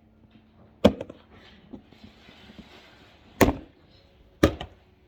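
Lid of a storage bin being opened: three sharp clacks, one about a second in and two close together near the end, with a soft rustle between them.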